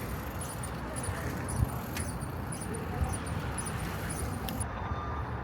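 Steady street traffic noise, a low rumble of passing vehicles with a couple of small knocks, and faint high ticks about twice a second that stop near the end.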